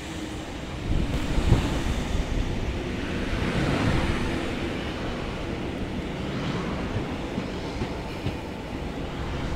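Sydney Trains K-set double-deck electric train rolling along the platform as it arrives, a steady rumble of wheels on rail with knocks over the rail joints, loudest about a second and a half in.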